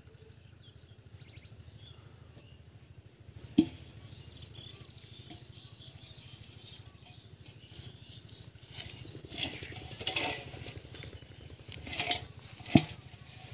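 Rustling of grass and leafy plants underfoot as a person walks barefoot through vegetation, busiest in the second half. Two sharp knocks stand out, one about three and a half seconds in and one near the end.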